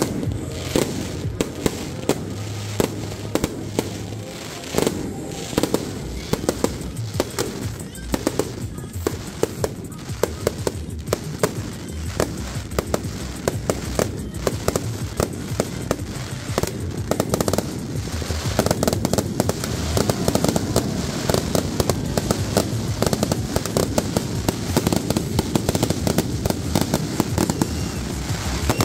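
Fireworks display going off, a rapid run of bangs and crackles that grows denser and louder about two-thirds of the way in, with music playing underneath.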